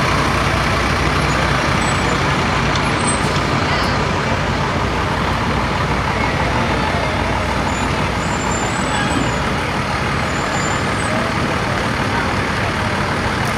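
Steady engine rumble of slow-moving trucks: a fire pumper truck rolling past close by, then a pickup truck.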